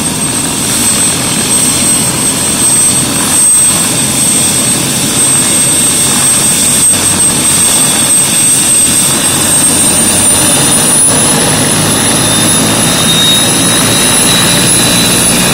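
Helicopter running on the ground, its turbine and rotor noise steady and loud. A high turbine whine climbs in pitch about ten seconds in.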